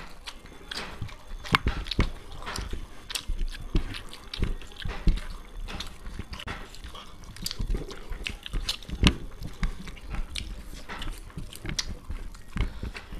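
Close-miked eating sounds of two people: chewing and lip-smacking as they eat fried rice and chowmein by hand, heard as irregular short wet clicks and smacks.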